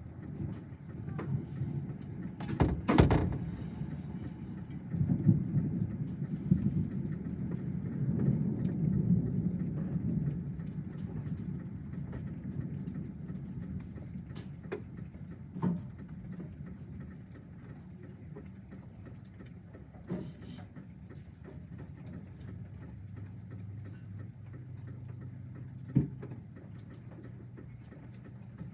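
Thunder rumbling low over steady rain, swelling for several seconds and then dying away. A sharp crack sounds about three seconds in, and a few fainter knocks come later.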